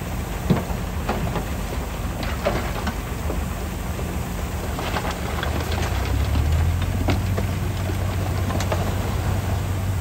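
Diesel engine of a 25-ton dump truck running under load as the tipper is raised, while stones slide and clatter out of the bed onto the pile; the engine note grows louder about six seconds in.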